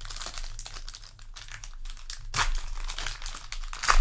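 Crinkling and rustling of trading-card booster pack wrappers and cards being handled, with louder crinkles about two and a half and four seconds in.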